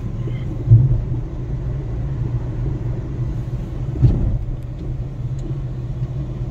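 Steady low rumble of a Suzuki car's engine and tyres heard inside the cabin while driving, with two brief thumps, one about a second in and one about four seconds in.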